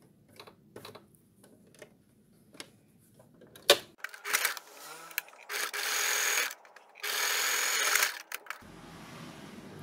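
Electric domestic sewing machine top-stitching with a wide zigzag stitch. Light clicks come first, then from about four seconds in the machine runs in short bursts, two of them lasting about a second each.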